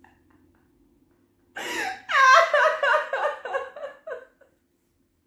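A young woman laughing hard. It starts about a second and a half in with a breathy rush, then a run of high, pulsed laughs that fall in pitch and die out a little before the end.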